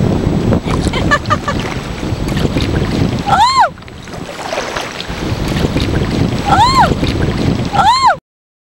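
Wind buffeting the microphone over water moving around a kayak. Three short whistle-like calls break through, each rising then falling in pitch. The sound cuts off abruptly about eight seconds in.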